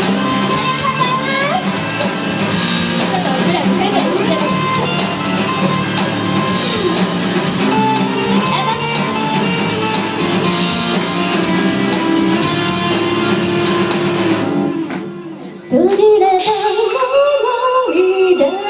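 Rock song with guitar and female singing, played loud through a venue PA. It drops away briefly about fifteen seconds in, then a new song starts with a woman singing into a microphone over a lighter backing.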